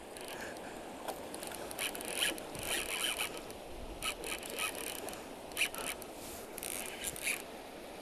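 A river running over rocks, with several short rasping bursts of line being pulled from a baitcasting reel's drag as a large Arctic char runs.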